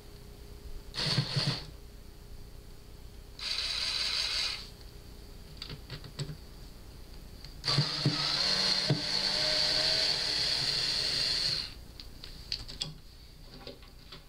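Power drill-driver motor running in three start-stop bursts, a short one, a slightly longer one and a long one of about four seconds, driving screws out of a speaker cabinet. Small clicks and taps of handling come between the bursts.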